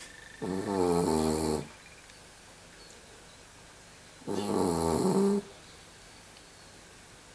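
Snoring in deep sleep: two snores, each a little over a second long, about four seconds apart.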